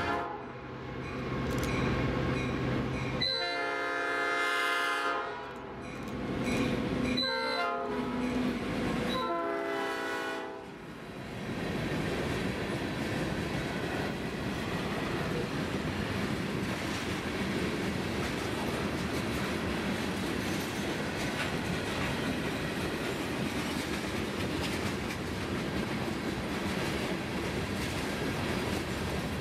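Diesel locomotive air horn sounding three blasts, long, short, long, followed by the steady rumble and clatter of loaded freight cars rolling past on the rails.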